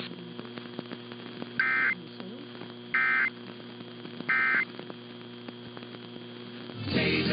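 Three short bursts of two-tone EAS/SAME data signal, the end-of-message code sent after a NOAA Weather Radio warning, each about a third of a second long and about a second and a half apart. They sound over a steady hum from the radio reception, with a swell of static just before the end.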